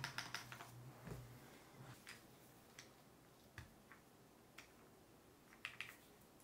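Scattered faint plastic clicks and taps from mechanical keyboard parts being handled during assembly: a few quick clicks at first, then single ticks about a second apart and a double click near the end.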